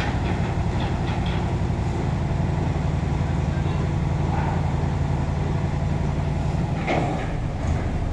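Heavy diesel engine running steadily with a low drone. A brief knock comes about seven seconds in.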